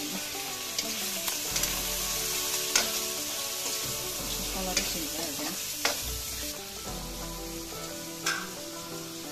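Chicken pieces with onion and spices sizzling in a steel kadai (wok) as a steel spoon stirs them, the spoon clanking against the pan several times. The sizzle eases a little about two-thirds of the way through.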